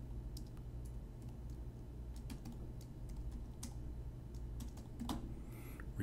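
Typing on a computer keyboard: a run of irregular, quick keystrokes as a file name is entered, over a faint steady low hum.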